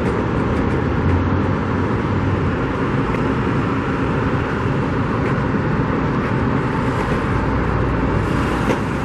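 Steady road traffic noise, a continuous rumble and hiss of passing cars, with a single faint click near the end.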